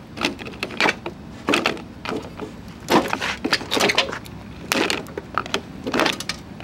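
Tin snips cutting through the plastic of a window air conditioner's fan, a sharp crunching snap with each cut, about eight cuts at uneven intervals.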